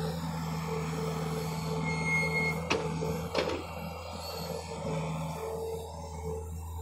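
A John Deere excavator's diesel engine running steadily under work, with two sharp knocks about three seconds in.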